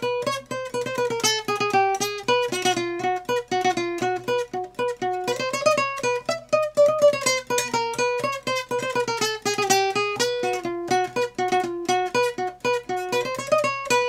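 Toy guitar picked in a fast circus tune: quick single plucked notes in a melody that winds down and climbs back up.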